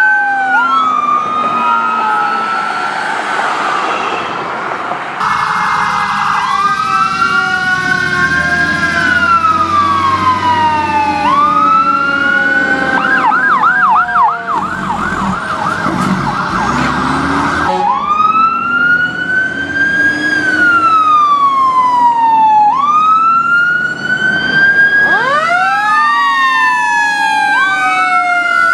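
Loud sirens of fire department emergency vehicles running hot, an ambulance and fire engines. The sirens wail, rising and falling over a few seconds each. About halfway through they switch to a fast yelp for several seconds. Near the end several sirens overlap.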